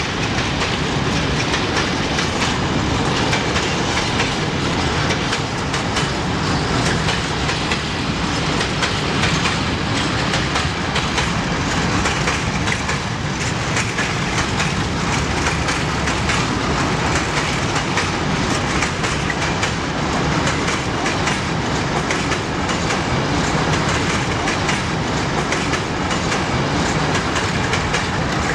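Freight train wagons rolling past, their wheels clicking steadily over the rail joints.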